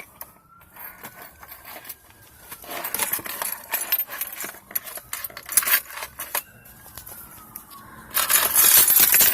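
A bunch of keys jangling, with scattered clicks and rattles as a key is worked into the Civic's maintenance-reminder reset slot on the dash to clear the oil-change light; the loudest jangle comes near the end.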